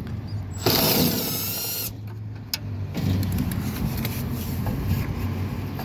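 Cordless electric ratchet whirring for just over a second, about a second in, its pitch wavering as it backs out a fastener. A steady low hum runs underneath.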